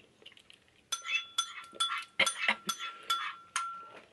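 Metal spoon clinking against a dish as food is scooped up. About ten sharp clinks with a brief metallic ring start about a second in and stop shortly before the end.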